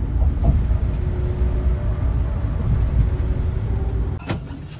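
Steady low rumble of a moving vehicle with a faint hum over it, breaking off abruptly about four seconds in.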